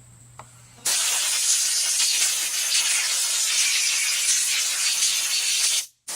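Aerosol carburetor cleaner spraying in a long, loud, steady hiss into a carburetor, starting about a second in, cutting off abruptly near the end and starting again after a short pause.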